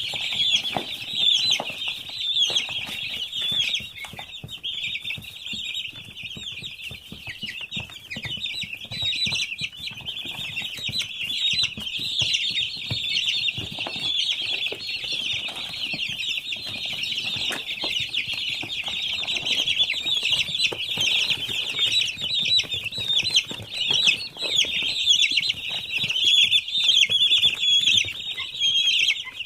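A large flock of eight-day-old chicks peeping nonstop, many high chirps overlapping into one dense chorus, with scattered soft taps and scuffles among them.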